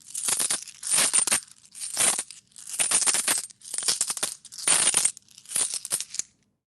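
A handful of metal coins tossed and shaken in a hand, clinking together in about seven quick jingling bursts roughly a second apart. The bursts stop near the end.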